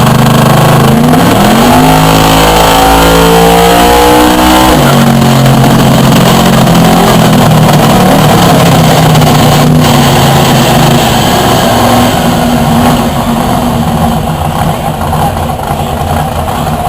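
All-aluminum 572 big-block V8 with a ProCharger F3 supercharger running hard on a chassis dyno. The revs climb steadily for about four seconds, then drop suddenly. After that the engine runs at a steady lower pitch and fades toward the end.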